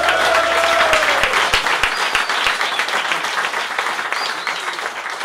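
Audience applauding at the end of a bluegrass song, with a drawn-out shout from a voice over the clapping in the first second or so. The clapping eases off toward the end.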